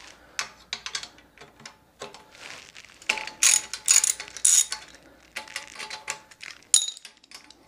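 Hand ratchet clicking in several short bursts while backing out a small 10 mm bolt. The clicking is busiest about three to four and a half seconds in.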